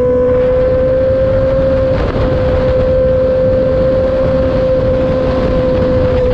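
Honda CB650R inline-four running at nearly constant high revs through a full exhaust with the dB killer removed, a loud, steady note with a slight rise in pitch and a brief break about two seconds in.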